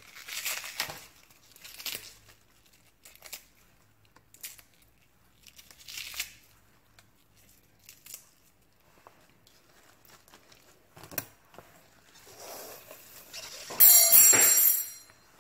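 Hands tearing leaves off a cabbage and kale, with plastic vegetable wrapping crinkling, in short scattered rips and rustles. The loudest is a longer burst about a second before the end.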